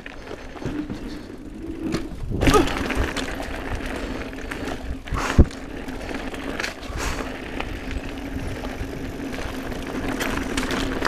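Mountain bike riding fast down a dirt singletrack: tyres rolling over dirt and the bike rattling, under a steady hum. Sharp knocks from bumps come about two and a half seconds in and again about five and a half seconds in, the second being the loudest.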